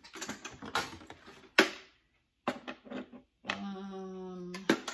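Hard plastic toy parts (hollow tubes and a round base) knocking and clattering as they are picked up and handled, with one sharp knock about a second and a half in. Near the end a steady low hum lasts about a second.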